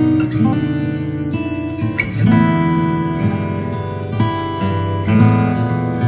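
Background music: strummed acoustic guitar, with chords changing about every second.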